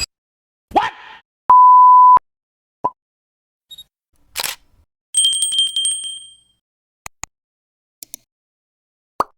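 A run of separate short editing sound effects with silence between them. The loudest is a steady censor-style bleep, a pure 1 kHz tone lasting under a second about a second and a half in. It is followed by single clicks and pops, a brief whoosh, and a ringing two-tone chime with fast repeated strikes around the middle.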